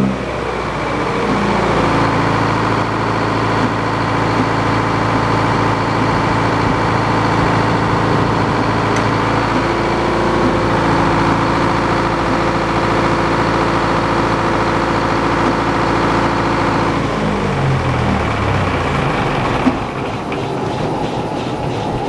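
The engine driving an old Frick circular sawmill runs at a steady speed with the big circular blade spinning free, no wood being cut. The engine's pitch shifts at the start and again about three-quarters of the way through, with a sharp click shortly after, and then it runs a little quieter.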